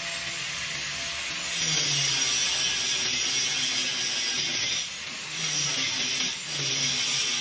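Cordless power tool running in three bursts with short pauses between, driving the bolts of the band clamps that join sections of an exhaust pipe; each burst is a hiss over a low motor hum.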